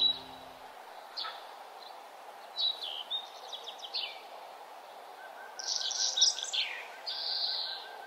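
Small songbirds chirping and calling in scattered bursts of quick high notes, over a steady outdoor background hiss. The busiest stretch of calls comes in the last third.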